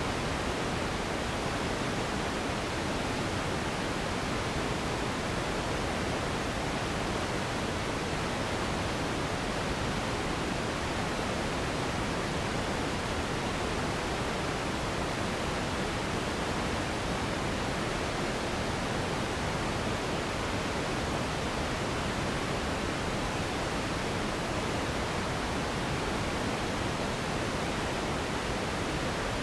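Steady generated noise for sleep: an even, unchanging hiss with no breaks or events.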